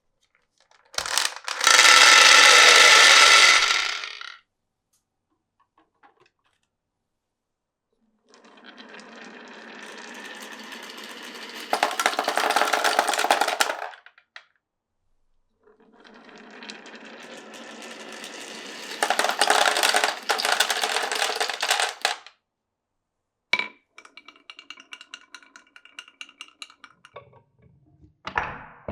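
Glass marbles rolling and clattering along a marble run's wooden rails and clear pipes: a loud run first, then two longer runs that start soft and get louder partway through. Then a sharp click, a patter of small taps, and a knock near the end.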